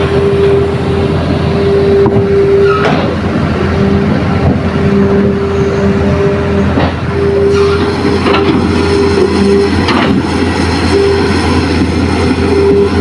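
Hitachi excavator's diesel engine working under load with a steady drone, a whine that cuts in and out, and several sharp knocks and clanks during soil loading.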